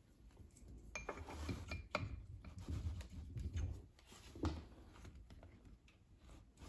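Light metallic clicks and clunks of a Ford 6F55 front differential's spider and side gears being turned by hand inside the case while a steel pin is handled, with a sharper clunk about four and a half seconds in.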